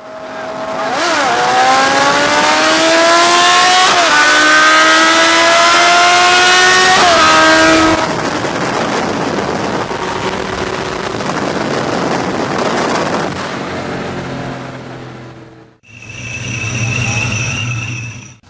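An engine at full throttle in a drag race, accelerating through the gears: its pitch climbs and drops back at shifts about 1, 4 and 7 seconds in. After about 8 seconds it gives way to a steady rush of wind and road noise. Near the end a brief separate shot carries a steady high whine.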